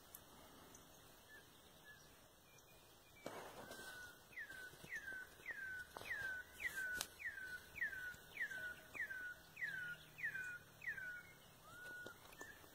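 Female ultramarine grosbeak (azulão) calling: a run of about a dozen short whistled notes, each sliding down in pitch, repeated evenly about twice a second, then one last separate note. The calls are the female's soliciting calls asking to mate. A brief rustle comes a few seconds before the calls begin.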